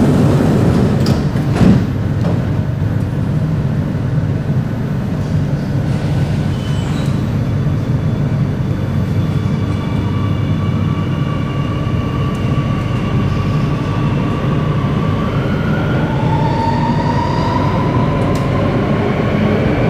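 Singapore MRT Circle Line train starting off from the station. A short knock about two seconds in, as the doors shut, then the electric traction motors whine, rising slowly in pitch as the train gathers speed, over a steady low rumble.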